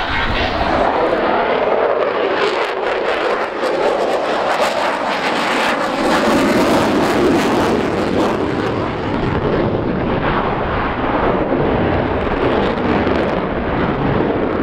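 Military jet aircraft flying a low pass: a loud, continuous rush of jet engine noise that holds fairly even throughout.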